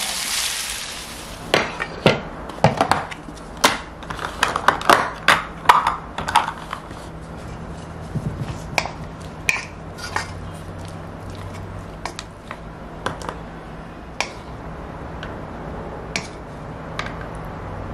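Wooden spoon knocking and scraping against a wok and plastic lunch containers as stir-fried beef is spooned out. A fading sizzle in the first second, then irregular clicks and taps, thickest in the first half and sparser after.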